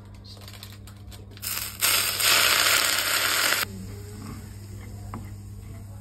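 Hot cooking oil poured onto crushed green and red bird's-eye chilies and garlic in a wooden bowl, sizzling loudly for about two seconds before cutting off abruptly.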